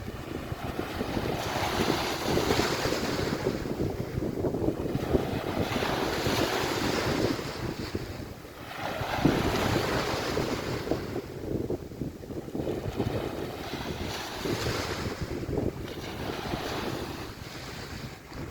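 Sea waves washing onto a beach in repeated surges every few seconds, with wind rumbling on the microphone.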